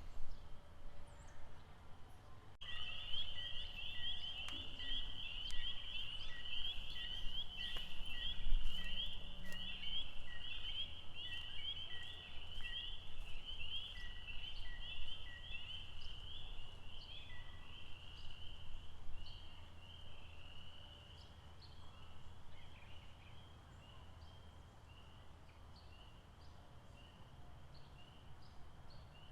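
A chorus of frogs calling in high, rapid pulsing trills that start suddenly a couple of seconds in and thin out in the last third. A lower call repeats evenly about twice a second through the first half, over a steady low rumble.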